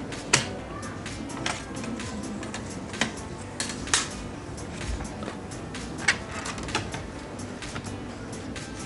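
Irregular light clicks and taps of plastic and metal laptop parts being handled and pried apart during disassembly of a Dell Inspiron N5110, with a few sharper clicks spread through.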